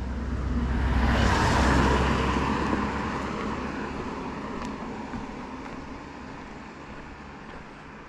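A car passes close by on an asphalt road. Its tyre and engine noise swells to a peak about one and a half seconds in, then fades steadily as it drives away.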